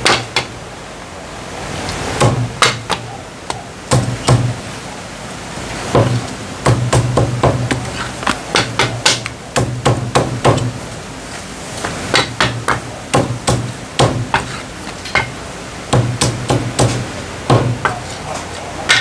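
Meat cleaver chopping through a cooked chicken on a thick round wooden chopping block: a long series of sharp, irregular chops, often several in quick succession, each landing with a dull thud of the block.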